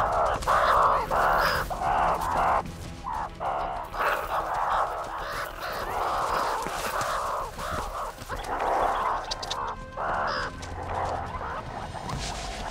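Several meerkats fighting, one being attacked by the others, giving harsh, raspy screeching and growling calls in quick succession.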